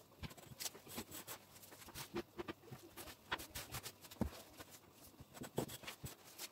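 Faint, irregular rustling and light taps as stiff crinkled damask fabric is handled and smoothed flat by hand, and a tape measure is laid against it.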